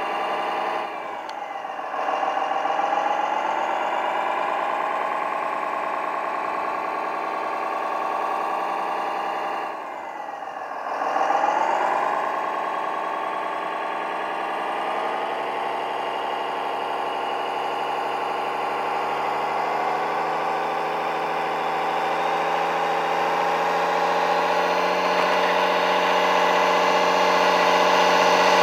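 Remote-control 6x6 military truck's engine sound running steadily as it hauls a lowboy trailer loaded with another truck. The pitch drops and climbs back twice, about a second in and again about ten seconds in, and the sound grows louder near the end.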